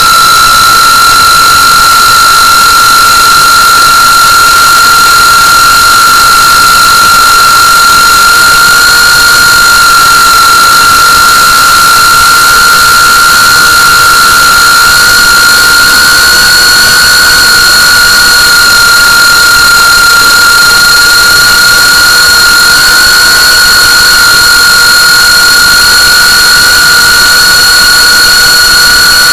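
A GEPRC CineLog35 3.5-inch FPV drone's brushless motors and propellers whining steadily in cruise flight, loud, with a high steady tone that creeps slightly higher in pitch over the flight.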